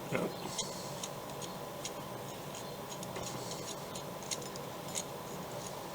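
Light, irregular metallic clicks and ticks as a wire tensioner is dismantled by hand, over a faint steady hum.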